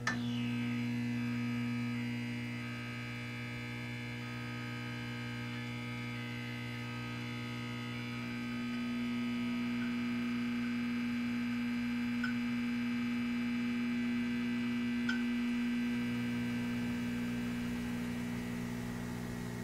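Steady electronic hum holding one pitch with many overtones, dipping slightly in level about three seconds in and coming back up about eight seconds in.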